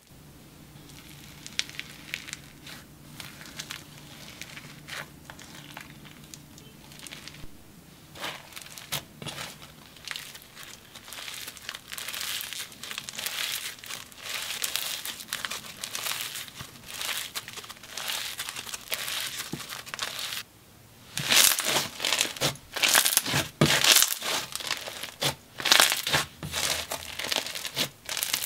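Microfoam slime packed with foam beads being squished and pressed by hands, giving dense crunchy crackling. It is soft at first and grows louder, then comes back strongest after a brief pause about two-thirds of the way through.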